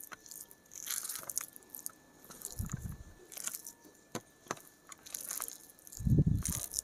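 Fingers mashing and mixing rice with curry and fried brinjal on a steel plate: soft wet squishing with sharp clicks of fingers against the plate. Two dull thumps come, one about two and a half seconds in and a louder one near the end.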